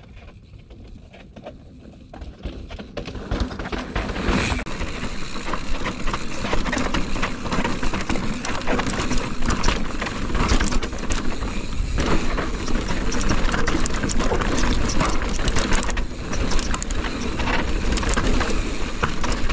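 Mountain bike riding down a rocky, chunky trail: tyres on rock and the bike rattling with many quick clicks and knocks. Fairly quiet at first, then loud from about three seconds in.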